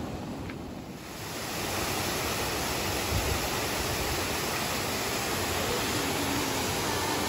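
Waterfall pouring into a pool: a steady, dense rush of falling water that swells in about a second in and holds on evenly.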